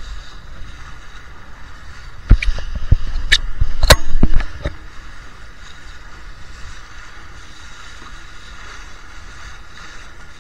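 Laser 2 sailing dinghy under way in strong wind: a steady rush of wind and water. About two seconds in comes a cluster of loud knocks and bangs lasting a couple of seconds.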